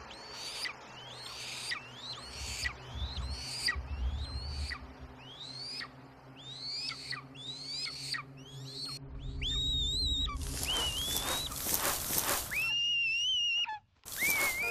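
Young eagle calling: a steady series of shrill, whistled calls, each rising then dropping away, about one every 0.7 seconds. About ten seconds in they turn into louder, longer, harsher screams.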